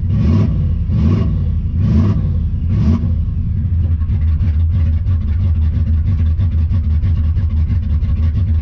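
Engine of a 1969 Chevrolet Impala running just after a cold start. It surges in short blips about once a second for the first three seconds, then settles to a steadier, rough run. It sounds sick but is clearly not running right.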